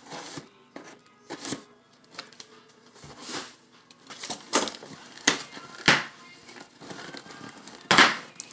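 Packing tape on a cardboard shipping box being cut with scissors and torn away, and the flaps pulled open: short scraping, ripping bursts at irregular intervals, the loudest near the end as the box comes open.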